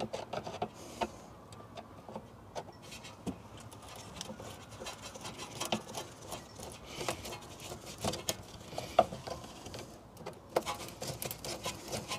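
Screwdriver loosening a worm-drive Jubilee hose clip on a car's rubber air intake pipe: a run of small, irregular metal clicks and ticks, busier and louder near the end.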